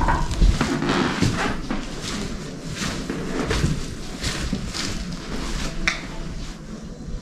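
Footsteps and rustling of someone walking with a handheld camera: soft scuffs and knocks spaced roughly half a second to a second apart, growing quieter toward the end.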